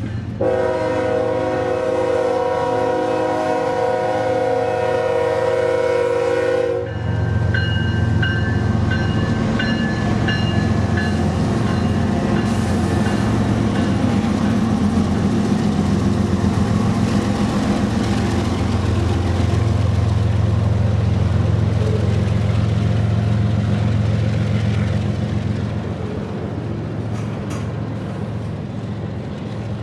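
Freight train locomotive's multi-chime air horn sounding one long blast of about six seconds that cuts off sharply, followed by the train passing: a steady low diesel rumble with wheel and rail noise that eases off near the end.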